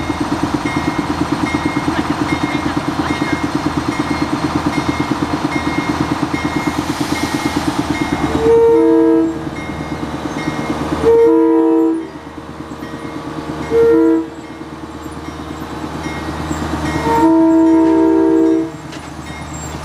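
Budd RDC self-propelled diesel railcar approaching, its engines running with a regular high ring about twice a second. It then sounds its horn in the grade-crossing pattern: two long blasts, a short one, and a final long one as it reaches the crossing.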